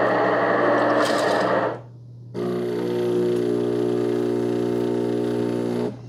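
De'Longhi TrueBrew coffee maker at the start of a brew cycle. Its built-in grinder runs with a rough whirr and stops a little under two seconds in. After a short pause the water pump starts with a steady electric hum and cuts off near the end.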